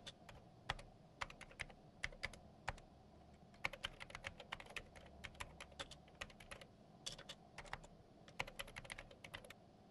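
Faint typing on a laptop keyboard: irregular runs of quick key clicks that stop shortly before the end.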